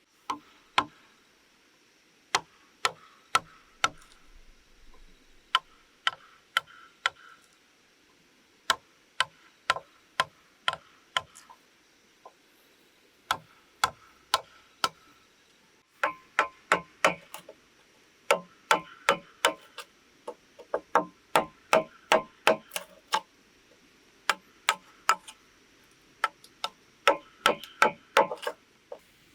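Sharp knocks of a hand tool striking bamboo, coming in irregular runs of several quick strokes a second with short pauses between.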